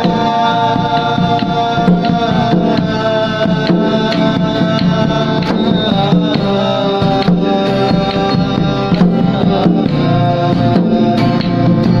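Instrumental music: a hand drum plays a busy rhythm under held melody notes, with acoustic guitars.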